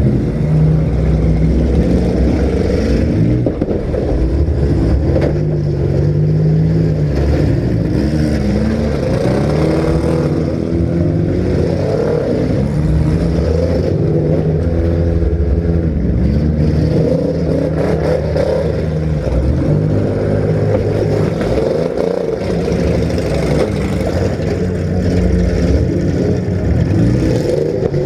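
Engines of several compact demolition derby cars running and revving at once, their pitches rising and falling as they accelerate and back off.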